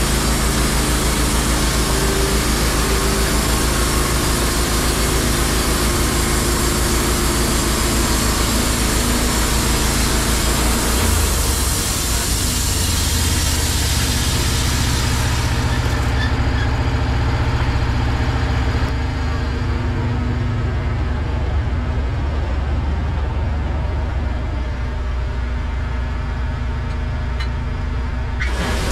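Wood-Mizer LT15 Wide bandsaw mill running, its engine driving the band blade through a hemlock log with a dense, steady hiss. About sixteen seconds in the hiss stops sharply as the blade comes out of the cut, and the engine keeps running with a lower, steadier sound.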